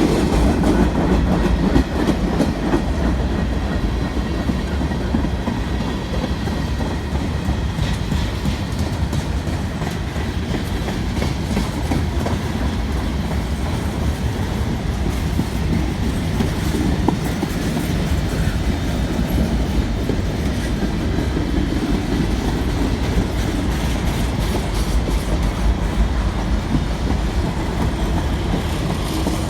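CN freight train's cars rolling past: a steady rumble of steel wheels on the rails, with a clickety-clack of wheels over the rail joints.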